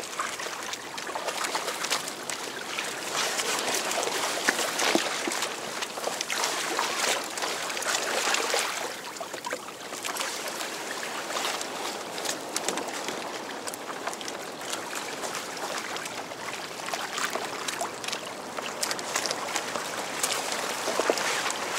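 Water rushing and splashing along a kayak's hull as it moves through choppy sea, coming in uneven surges with small slaps and drips.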